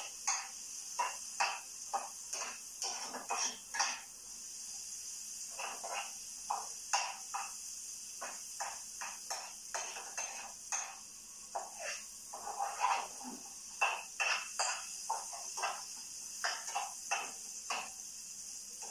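Metal spoon scraping and knocking against a frying pan as vegetables are stirred, in irregular strokes about one or two a second, over a steady high hiss.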